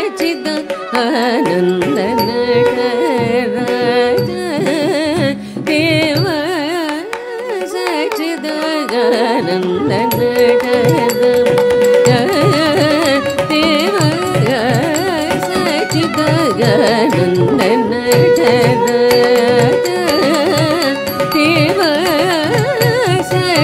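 Carnatic vocal music: a pada varnam in raga Natakurinji, the voice sliding and oscillating through heavy ornaments and holding some long notes. About ten seconds in, steady hand-drum strokes enter beneath the singing.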